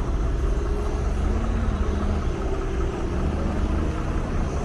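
Motor vehicle engines running with road traffic, a steady low rumble.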